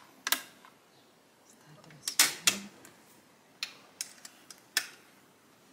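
A series of sharp, irregular clicks and knocks, about nine in all, the loudest a quick cluster about two seconds in.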